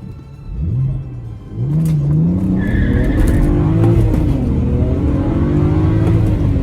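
BMW 335xi's twin-turbo straight-six revving hard as the all-wheel-drive car launches on a wet road, all four tyres spinning and squealing in a brief burnout. The engine's pitch climbs, falls back about four seconds in, then climbs again.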